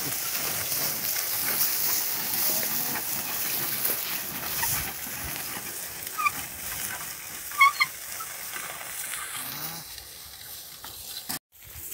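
Steady crackling and rustling of an ox-drawn walking plough cutting through dry soil and grass, with two short high chirps about six and seven and a half seconds in. The sound cuts out briefly near the end.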